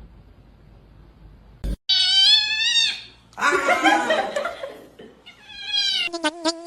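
A cat meowing and yowling: a long wavering meow, then a rougher drawn-out yowl and another call. Near the end come rapid stuttering short calls, about eight a second.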